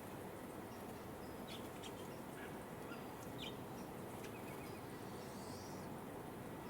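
Faint, short bird chirps, a few scattered calls including a quick little series about five and a half seconds in, over a steady low outdoor background hum.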